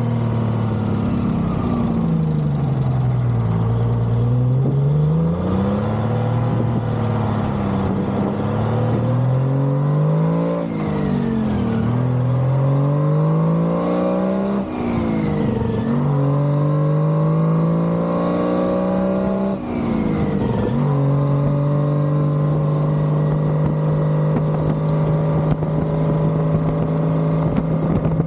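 Two-stroke Detroit Diesel engine of a Peterbilt cabover truck under way: its pitch sinks and rises twice, then climbs and drops sharply several times as it shifts up through the gears, and about three quarters of the way through it settles into a steady cruise.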